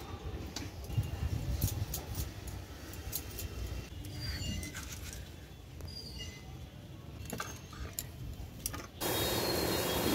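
Scattered small clicks and taps of potatoes being cut in the hand with a knife over steel bowls, over a low steady rumble. Near the end a tap is suddenly turned on, water running steadily into a steel bowl of Malabar spinach leaves.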